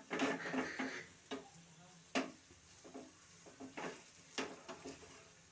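Steel spoon clinking and scraping against a tawa while pressing a paratha, with several sharp, irregularly spaced clicks.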